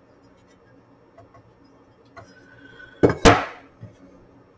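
A faint steady low hum with a few light ticks, then about three seconds in a sharp double knock of metal parts being handled on the opened 8-track player's chassis.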